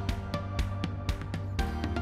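Background music with a steady beat: regular percussion hits over a held bass line and pitched instrument notes.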